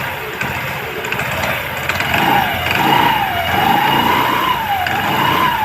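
Yamaha Fascino scooter engine running and revved up and down repeatedly, a whine rising and falling about once a second from about two seconds in. No knocking comes through: the clatter on pick-up has been cured by new variator rollers and a new variator plate.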